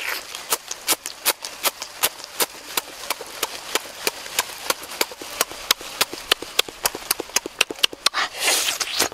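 Close-up chewing and lip-smacking of someone eating chicken wings: an irregular run of wet clicks, several a second, with a brief breathy rush near the end.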